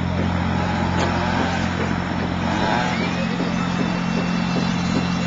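An engine running steadily with a low drone, over a general outdoor bustle.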